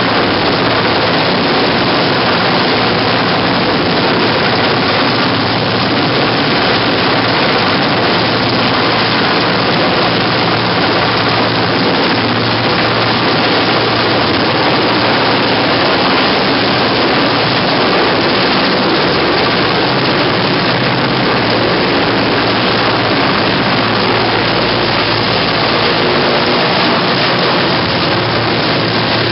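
Mil Mi-8-type transport helicopter's rotors and turbines running, loud and steady, as it hovers close by and lifts away with an underslung load.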